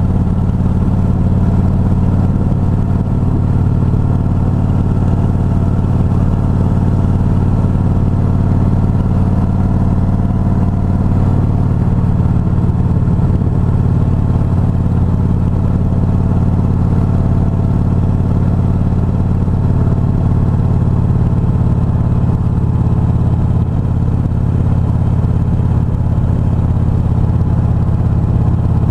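Motorcycle engine running steadily at an even cruising speed, a loud, constant low drone with no change in pitch.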